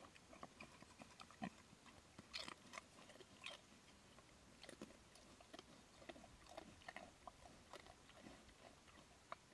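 Pig foraging with its snout in the undergrowth and chewing, heard as faint, irregular small crunches and rustles.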